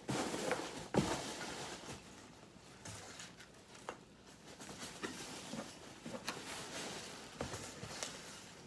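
Hands digging through polystyrene packing peanuts in a cardboard box: a continuous rustle with scattered light clicks, louder in the first couple of seconds, with one sharp knock about a second in.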